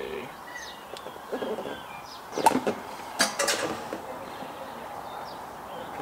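A few sharp clicks and clinks of small shifter parts being worked loose from the gearbox shift turret, one about two and a half seconds in and a quick cluster a second later, with birds chirping faintly in the background.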